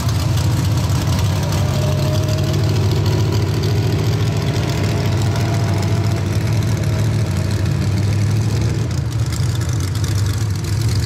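Engines idling steadily between runs at a pickup truck pull, a constant low hum with no revving.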